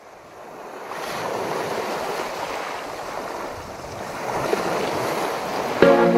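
Small waves breaking and washing up a pebble beach, fading in at the start. Music comes in near the end.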